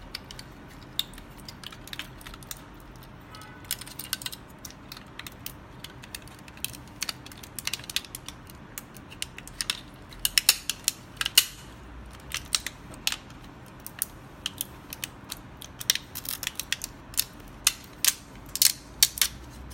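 PLA support material on a 3D print cracking and snapping as it is pulled away by hand, in irregular sharp clicks that come faster in the second half. The dissolved PVA interface lets the support come away easily.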